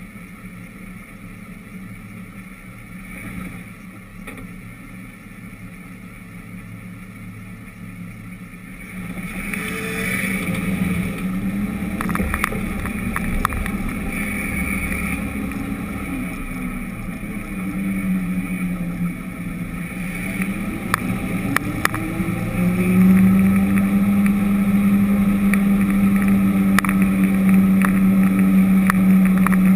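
Vehicle engine, quiet and steady at first, then louder as the vehicle pulls away about nine seconds in; its pitch falls and rises as it drives, then holds a strong steady note near the end, with a few short ticks.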